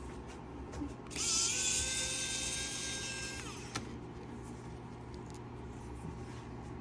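Small electric screwdriver running for about two and a half seconds, driving screws out of a laptop during screen disassembly. It starts about a second in with a whine that rises slightly and holds steady, then drops and stops.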